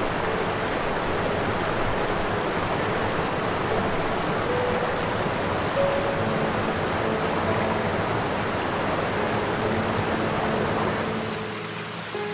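Steady rushing water noise, even and hissing, with soft background music notes underneath. The rushing fades out near the end, leaving the music.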